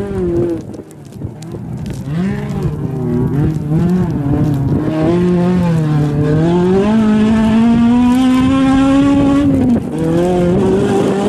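Rally car engine driven hard, its pitch rising and falling with throttle and gear changes. In the second half it climbs steadily for several seconds, drops sharply on a lift or shift near the end, then picks up again.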